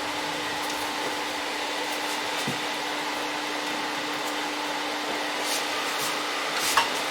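Steady rushing airflow with a faint steady hum from a hobby powder coating setup's air supply, with a few light clicks near the end.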